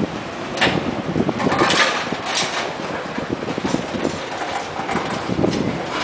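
Freight train cars rolling past close by, a tank car and then a boxcar, with a steady rumble of steel wheels on the rails. A few sharper clacks stand out in the first half.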